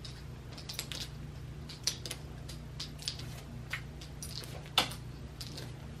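A cat playing with a feather wand toy: scattered light clicks and rattles as the toy and the cat's paws knock about on a tile floor, the sharpest about five seconds in, over a steady low hum.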